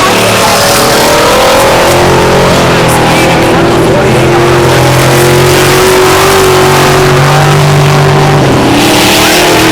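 Several eight-cylinder dirt track race cars running at speed around the track: a loud, continuous engine drone whose pitch drifts slowly up and down as they go around.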